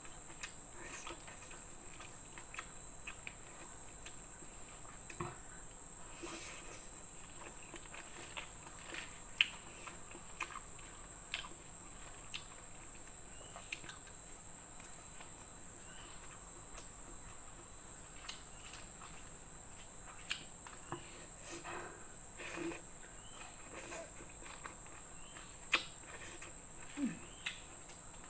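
Close-up eating sounds: scattered short clicks and smacks of chewing and of a utensil against a plate, a few louder ones, over a steady high-pitched insect trill.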